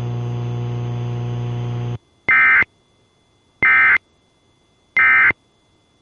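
A steady buzzing hum cuts off about two seconds in. Three short, identical bursts of high warbling data tones follow, evenly spaced: the Emergency Alert System's SAME end-of-message code that closes an alert broadcast.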